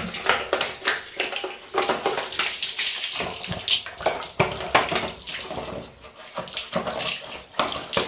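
Tap water running and splashing over a Samsung washing machine's plastic detergent drawer as it is rinsed and rubbed by hand, the splashing uneven as the drawer is turned in the stream.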